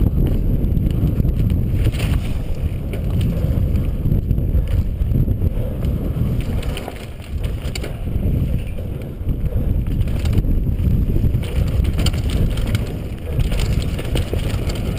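Heavy wind rumble on a helmet-mounted GoPro's microphone as a KHS Lucky 7 downhill mountain bike runs fast down a dry dirt trail, with tyre noise on the dirt and scattered rattles and clicks from the bike. The level dips briefly about halfway through.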